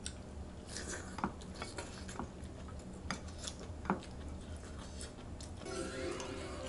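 Chopsticks and a spoon clicking now and then against ceramic bowls and a pan during eating, a few light clinks spread out. Background music comes in near the end.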